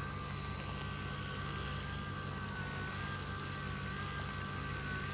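Vibration therapy machine running steadily, a constant motor hum with a thin high whine that wavers slightly in pitch.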